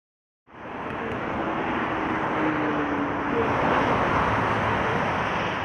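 Steady noise of fast motorway traffic, the tyres and engines of passing cars and vans, starting abruptly about half a second in.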